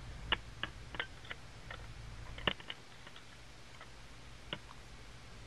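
Light, irregular metallic clicks and taps of hand tools working the bolts on an outboard motor's lower unit, about nine in all, with one louder knock about two and a half seconds in.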